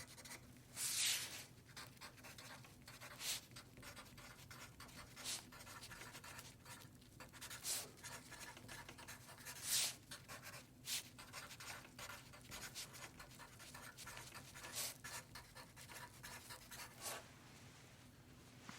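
Pen writing: irregular scratchy strokes of the tip, some sharper and louder than others, growing sparser near the end.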